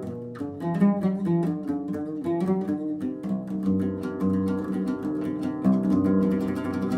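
Background music: a plucked string instrument playing a melody of separate notes, with a lower sustained accompaniment joining about halfway through.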